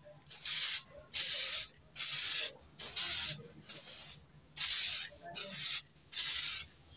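Aerosol spray paint can (Diton candy tone black) hissing in six short bursts of about half a second each, with pauses between. The short, light passes lay down a thin first coat.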